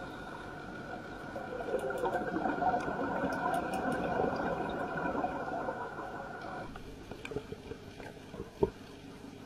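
Underwater recording: a muffled bubbling, swishing water noise with faint crackles, loudest a couple of seconds in. About seven seconds in it changes abruptly and becomes quieter.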